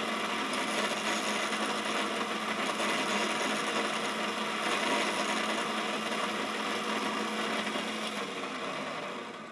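Quorn tool and cutter grinder's cup wheel grinding the flute of an end mill: a steady grinding hiss over the hum of the motor, dying away near the end.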